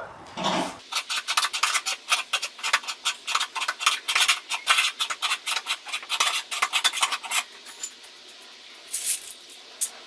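Scissor jack being cranked down by hand to lower the car, giving a quick, even run of clicks, about five or six a second, that stops about seven and a half seconds in.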